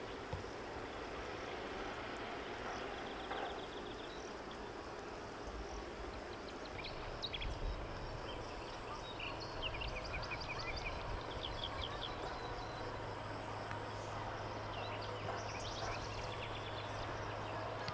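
Outdoor ambience of birds chirping and trilling now and then over a steady background hiss. A low hum joins about two-thirds of the way through.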